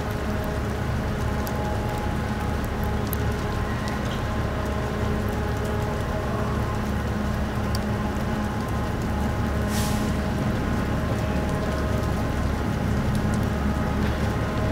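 Car ferry Okesa Maru's engines and machinery running in a steady drone with several held tones while berthing, with scattered small clicks and a brief hiss just under ten seconds in.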